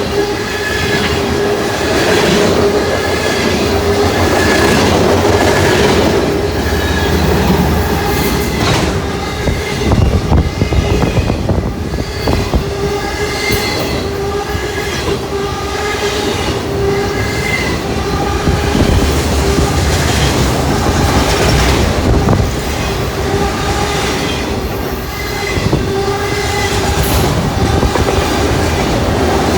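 Long freight train's cars rushing past at speed close by: a steady rumble and rush of steel wheels on rail, with a regular repeating clack and a ringing metallic tone from the wheels.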